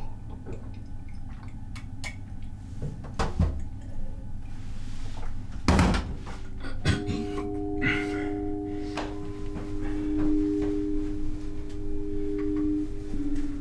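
A few knocks, then a loud thunk as a drinking glass is set down on a steel sink counter. About seven seconds in, a steady held chord of a few low tones sets in and keeps going: a sustained musical drone.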